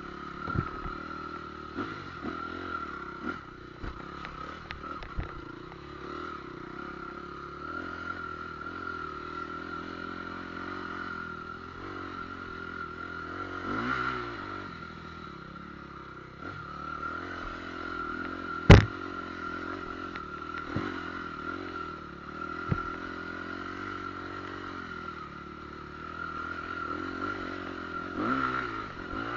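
An engine runs steadily throughout, with scattered knocks and clatter and one sharp, loud bang about two-thirds of the way through.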